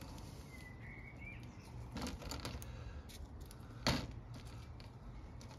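Small handling clicks and rustles as a PVA wrap is tied onto a carp rig's hook bait, the sharpest click about four seconds in. A short faint bird chirp comes about a second in over a quiet background.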